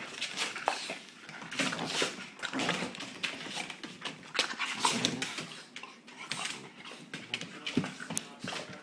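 A dog play-fighting with a person's hand at close range: irregular scuffling and handling noise mixed with the dog's own sounds.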